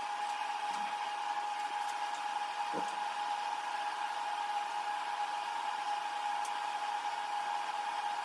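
Steady whirring hum with a constant high tone, unchanging throughout, like a running fan or blower motor; a brief faint falling sound about three seconds in.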